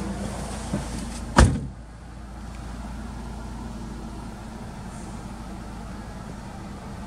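Subaru Legacy B4's flat-four engine idling steadily, heard from inside the cabin, with one sharp knock about a second and a half in.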